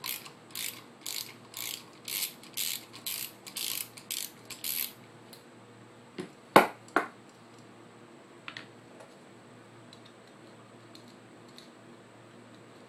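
Socket ratchet clicking in about ten short rasping bursts, roughly two a second, as it is swung back and forth to undo the 17mm flywheel nut on a Yamaha QT50 moped. A few sharp metal clacks follow about halfway through, the loudest sounds here, then a single lighter click.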